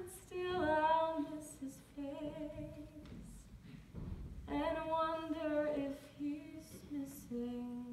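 A woman's solo singing voice, unaccompanied, in two phrases of long held notes with a wavering vibrato; the second phrase starts about four and a half seconds in.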